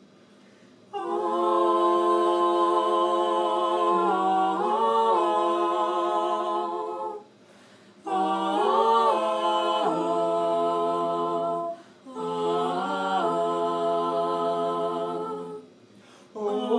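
Mixed quartet of two female and two male voices singing a cappella: held wordless chords in three phrases, each ending in a short pause.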